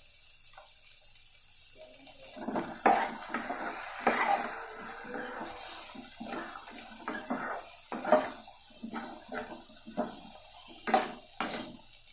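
A steel ladle stirring chopped tomatoes, onions and cashews in a kadhai, scraping and clinking against the pan in irregular strokes that start about two seconds in.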